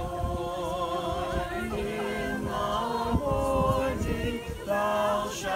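Small mixed group of men's and women's voices singing a psalm hymn together, unaccompanied.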